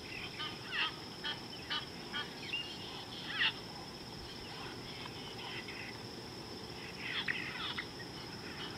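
Wild birds calling: a run of short, sharp calls, some sweeping down in pitch, loudest about three and a half seconds in and in a cluster near the end.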